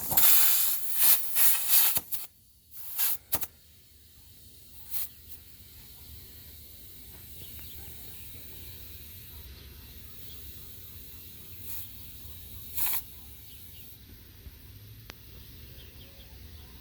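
Compressed air hissing from an air hose chuck while a garden tractor tire is inflated: several loud bursts in the first two seconds, a few shorter spurts over the next few seconds, and one more brief spurt near the end.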